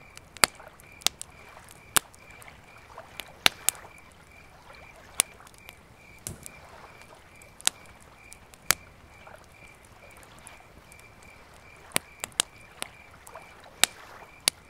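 Campfire crackling: sharp, irregular pops and snaps of burning wood, some louder than others. Under them a faint high chirp pulses evenly, two or three times a second.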